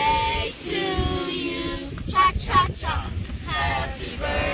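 Children and women singing together in long held notes, with two short, loud high notes a little over two seconds in.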